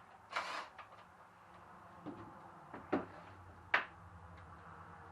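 Workshop handling sounds: a short scrape, then three separate knocks, the sharpest about two-thirds of the way through, as engine parts or tools are set down, over a faint low hum.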